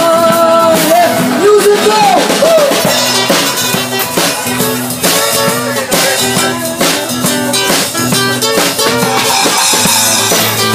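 Live band playing: acoustic guitar strumming with a drum kit keeping a steady beat. A voice sings over it for the first two or three seconds, then the song carries on as an instrumental passage.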